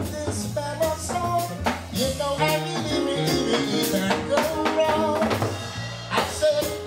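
Live jazz combo playing, with drum kit and a male singer's vocal line over it.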